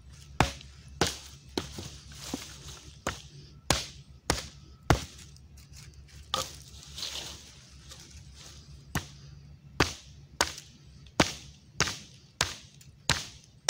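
Hultafors axe chopping into a green branch: a string of sharp chops about one every half second, with a lull in the middle before the chopping picks up again.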